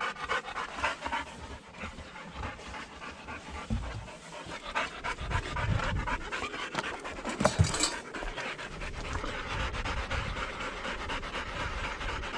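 Two Elhew pointers panting rapidly, tired and hot after bird-dog work. A brief louder noise cuts in about seven and a half seconds in.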